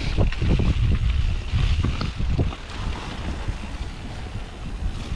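Wind noise on a GoPro microphone over the rumble of a Santa Cruz Nomad mountain bike's tyres on a dirt trail, with irregular knocks and rattles as it bounces over the ground. About two and a half seconds in it turns quieter and smoother.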